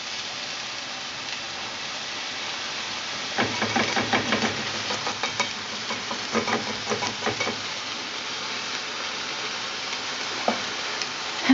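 Seafood and green curry paste frying in a stainless steel pan with a steady sizzle, while a spatula stirs and scrapes the pan in two bouts of quick strokes, about three and six seconds in. A single click comes shortly before the end.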